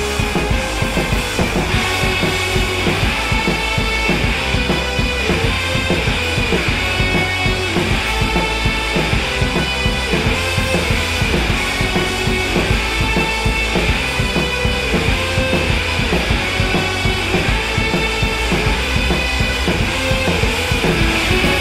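Heavy metal music with a fast, busy drum kit and electric guitar, playing without a break.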